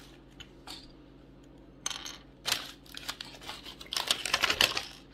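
Small plastic building-brick pieces clicking and clattering as they are handled and fitted together. The clicks come singly at first and grow into a quick, busy clatter near the end.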